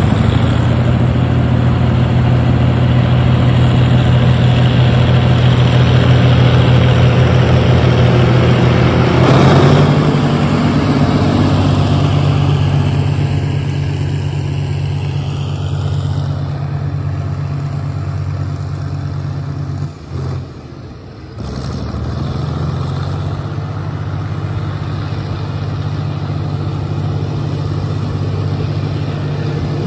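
Diesel engine of a mid-century GE locomotive running under load as it hauls a passenger train, with a steady low engine note over the rumble of the coaches rolling past on the rails. The engine note steps up in pitch about a third of the way in, and the sound drops out briefly about two-thirds through before returning.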